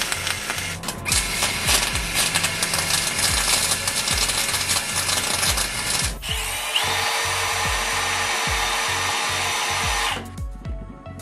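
MIG welding on an aluminium frame with a spool gun: an arc crackling and hissing in two runs, the first stopping about six seconds in and the second, smoother and steadier, cutting off sharply near the end.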